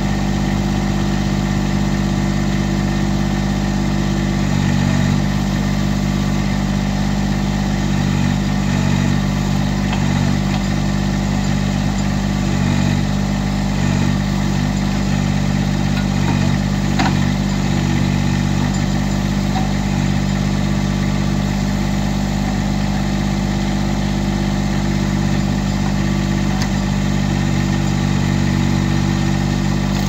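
Massey Ferguson GC1710 compact tractor's three-cylinder diesel engine running steadily while it powers the backhoe hydraulics digging out a tree stump. Its note changes a little now and then as the hydraulics take the load.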